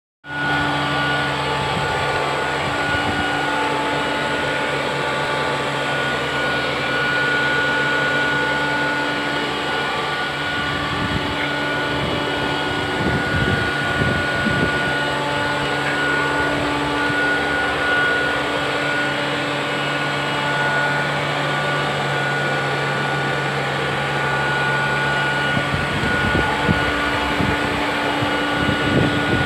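Electrolux Trilobite robot vacuum cleaner running over rough concrete: a steady motor hum and whine with a fixed high tone, from a robot that truly vacuums with suction rather than only sweeping. Its low hum drops away about 26 seconds in.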